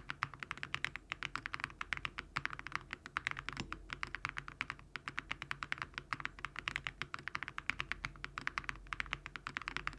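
Continuous fast typing on a Crush80 mechanical keyboard fitted with HMX Frosted Jade switches and Awekeys Viking metal keycaps, many keystrokes a second with a few brief pauses.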